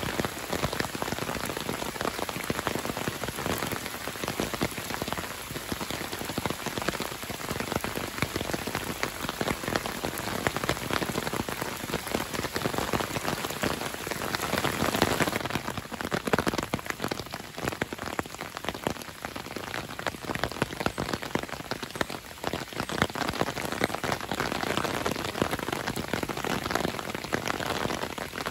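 Thunderstorm rain falling steadily on shallow lake water, a dense patter of countless drops.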